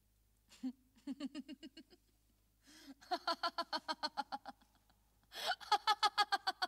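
Laughter in three bouts, each starting with a sharp intake of breath and running into quick, even 'ha-ha-ha' pulses of about eight a second.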